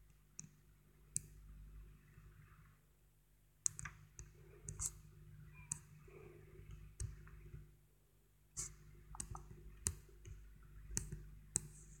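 A fingertip tapping and rubbing on a tablet touchscreen while drawing. There are irregular sharp clicks, about a dozen, with faint swishing between them.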